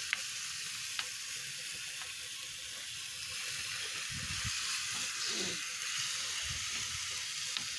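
Rice frying on a hot flat pan with a steady sizzle. A spatula stirs it, with a few sharp clicks against the metal and a couple of dull knocks.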